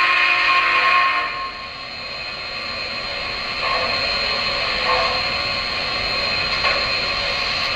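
Three-rail O gauge model train running on its track: a steady whir and rattle with a thin high whine, louder for about the first second and a half, then light clicks every second or so as it rolls on.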